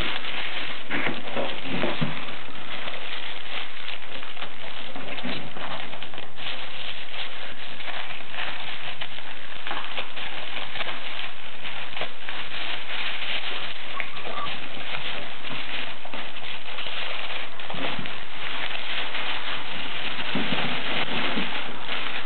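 Plastic packaging rustling and crinkling without pause as a laptop is handled in its clear plastic bag and foam wrap and drawn out of it.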